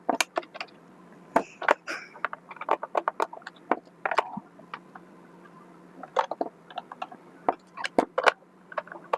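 Irregular clicks, taps and light knocks of plastic parts of a robot vacuum mop's housing being handled and worked with a screwdriver.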